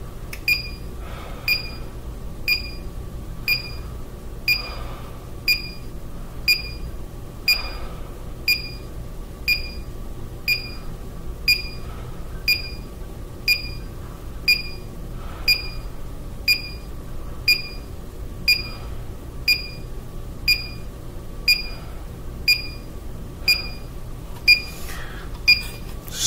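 Handheld carbon dioxide detector beeping steadily, a short high beep about once a second. Under the beeps a man breathes through a face mask every few seconds, with the detector tucked inside the mask at his mouth.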